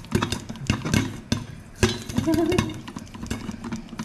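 Popcorn popping inside a covered stainless steel saucepan, many sharp pops in quick, irregular succession, while the pan is shaken back and forth over the gas burner and the corn rattles inside.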